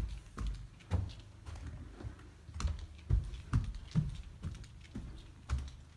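Footsteps climbing carpeted stairs and walking on carpet: a series of soft, dull thuds, roughly two a second.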